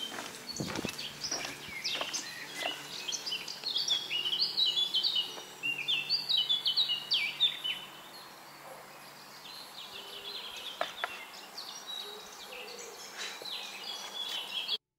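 Songbirds chirping and singing in quick runs of high notes, busiest in the first half and fainter after about eight seconds. The sound cuts off abruptly just before the end.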